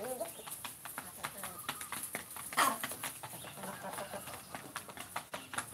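Free-range village chickens clucking while they feed, with many sharp taps of beaks pecking at a feed bowl and the ground. One louder sharp sound comes about two and a half seconds in.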